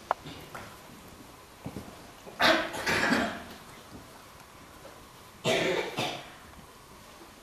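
A man coughing hard in two short fits about three seconds apart, each a cluster of harsh coughs, with a sharp click just before the first.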